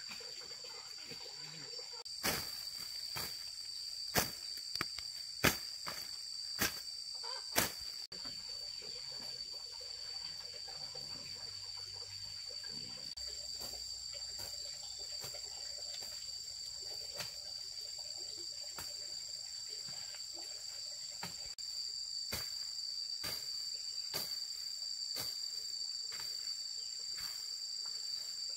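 Insects shrilling steadily at two high pitches. A string of sharp knocks about a second apart cuts through the first several seconds, with a few fainter knocks later.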